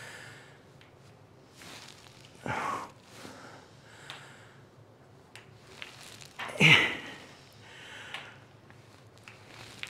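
A man breathing hard under exertion: huffing breaths, with a short voiced grunt falling in pitch about two and a half seconds in and a louder one near seven seconds in.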